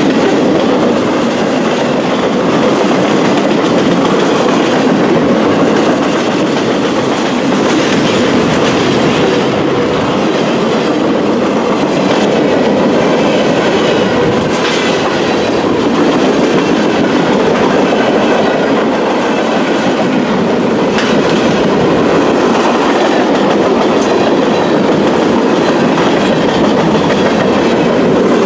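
Empty intermodal freight cars rolling past close by: a steady rumble of steel wheels on rail with clickety-clack over the joints and a few sharper clicks.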